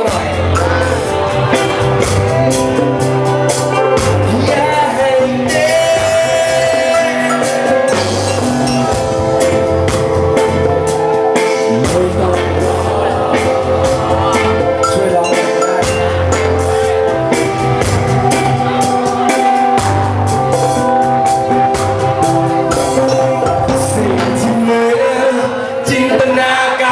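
Live band playing with a singer: hand drums, electric bass and keyboard over a steady beat.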